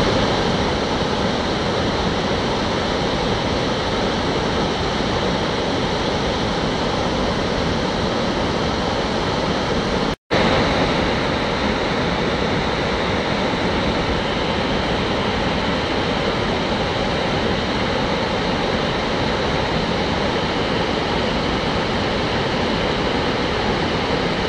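The steady rush of Victoria Falls, the Zambezi River's water pouring over the cliff into the gorge. A very brief dropout to silence about ten seconds in.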